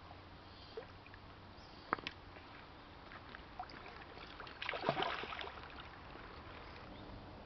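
A hooked asp thrashing and splashing at the water's surface as it is drawn toward the bank, a short burst of splashing about two-thirds of the way in. A couple of sharp ticks come about two seconds in.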